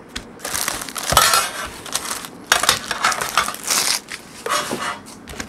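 A metal trading-card tin and its wrapping being handled and opened: a run of crinkling, scraping noises.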